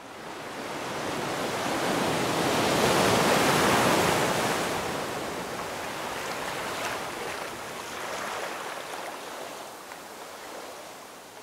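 Ocean surf: a wave breaking and washing in as a rushing swell that builds over a few seconds and then slowly fades away.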